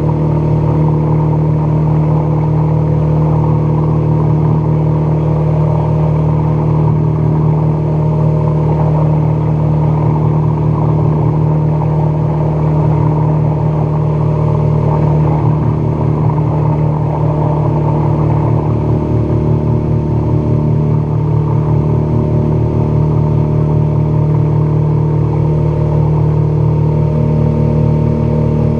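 Outboard motor running steadily at speed, driving a small aluminum fishing boat, with water rushing past the hull. The engine note holds one steady pitch throughout.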